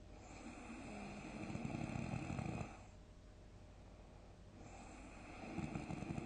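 A sleeping person snoring heavily: two long rattling snores, each swelling over a couple of seconds. The first stops abruptly and the second is still going at the end.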